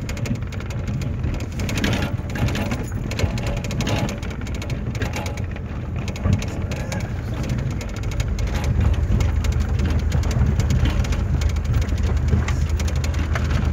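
Car engine running as the vehicle drives over a rough dirt and gravel track, heard from inside the cab, with the tyres crackling over stones and many small knocks and rattles. The engine drone grows louder about eight seconds in.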